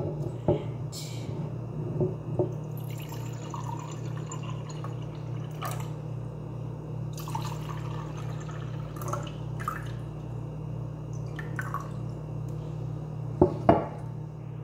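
Water pouring and dripping from a glass jug into ceramic mugs, with a few light clinks and a steady low hum underneath. Two sharp knocks come near the end.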